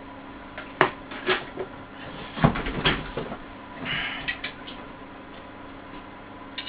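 A few sharp knocks and clatters of hard objects being handled, loudest in a short cluster about two and a half seconds in, over a steady hum.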